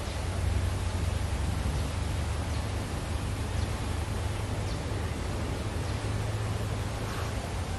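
Steady low rumble of wind on the microphone over outdoor hiss, with a few faint, short, high bird notes spaced about a second apart in the middle.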